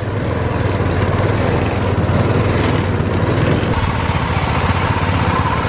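Bamboo train's small petrol engine running steadily as the platform rolls along the rails, with a constant rattle from the wheels and deck on the track.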